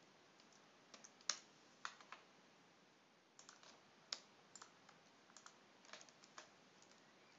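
Faint, scattered keystrokes on a computer keyboard as code is typed, coming in a few short irregular clusters.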